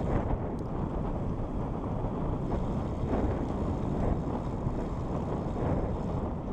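Wind buffeting the microphone of a camera on a road bike in motion: a steady low rush of noise.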